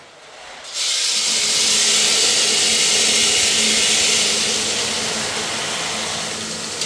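A loud, steady rush of air from a motor-driven blower, with a low hum under it. It starts abruptly about a second in and holds steady.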